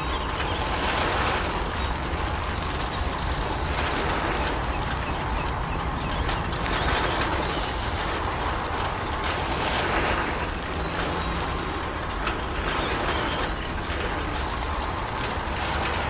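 A miniature hand-cranked wire-mesh grain drum turning with a steady ratcheting rattle, grain tumbling inside it and pouring down a chute into a bamboo basket.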